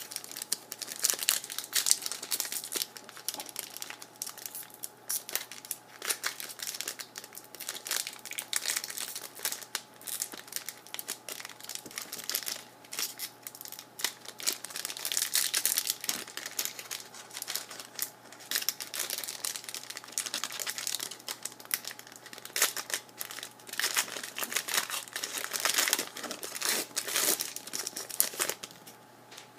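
Trading card pack wrappers crinkling and being torn open: a dense, irregular crackle with louder spells, over a faint steady hum.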